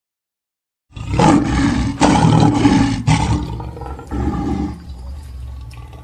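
Lion roaring: a loud, rough roar starting about a second in, broken off twice, then trailing into quieter, deeper rumbling grunts.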